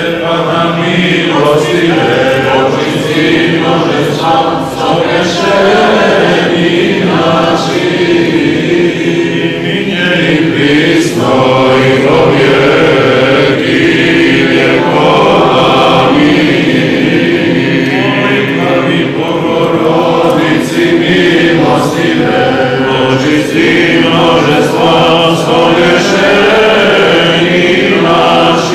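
Orthodox liturgical chant sung by a group of voices, steady and unbroken.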